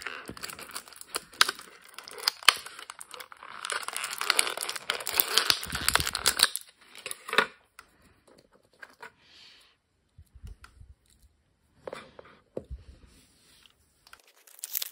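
Clear plastic blister packaging crinkling and rustling as an action figure is worked free of its tray and twist tie, for about seven seconds. After that come sparse small clicks and handling noises, with a sharper click near the end.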